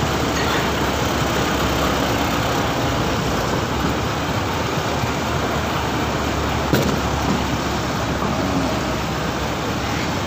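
Concrete mixer truck's diesel engine idling steadily at close range. One short knock about seven seconds in.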